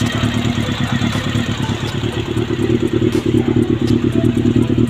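Freshly rebuilt Honda CB400 engine running steadily, with a light tick from the top end that the owner suspects comes from parts not yet bedded in. It gets a little louder about three seconds in.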